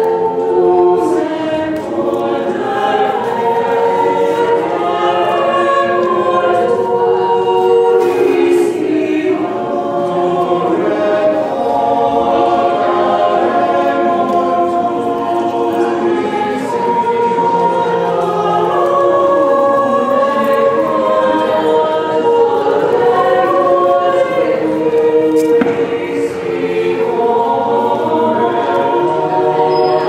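Small mixed choir of men's and women's voices singing unaccompanied in several parts, holding sustained chords that move slowly and continuously.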